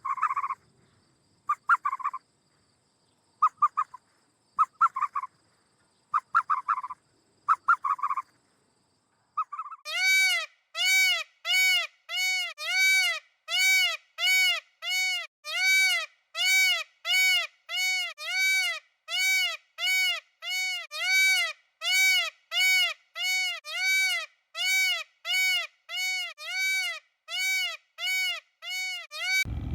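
Bird calls: short calls, some in pairs, for the first several seconds. Then a long, very regular series of rising-and-falling pitched calls, about one and a half a second.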